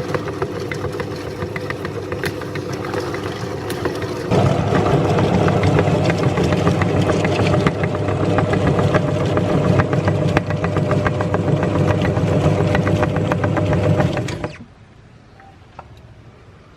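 Electric meat grinder running with a steady motor hum and a crackle of small clicks; it gets louder about four seconds in and cuts off shortly before the end.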